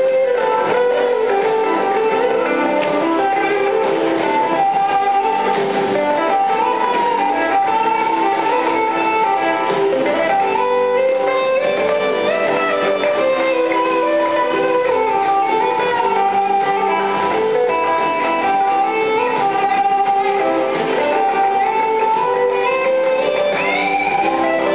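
Live rock band playing with electric guitars and drums; a lead electric guitar line winds up and down over the band.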